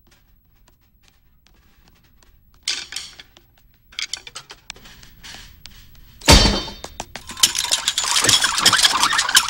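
Metallic clattering and clinking: faint scattered clicks at first, louder bursts of rattling about three and four seconds in, a loud hit about six seconds in, then dense, loud clattering.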